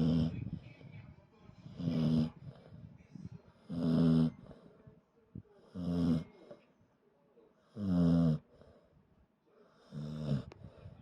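A dog snoring loudly in deep sleep: six snores at an even pace, about two seconds apart.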